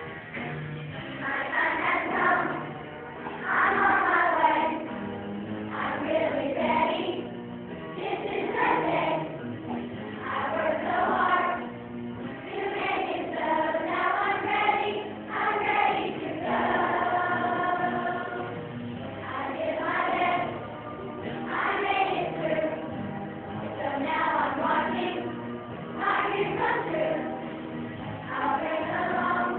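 A children's choir of fifth graders singing a farewell song together over a steady instrumental accompaniment.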